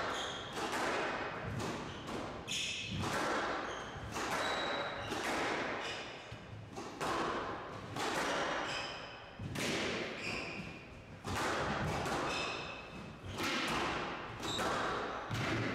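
Squash rally: the ball being struck by rackets and hitting the court walls, sharp echoing impacts about once a second, with short high squeaks from the players' shoes on the court floor.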